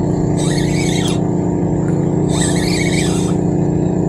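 A small engine running at a steady, unchanging speed. A higher-pitched chirring sound comes and goes three times over it.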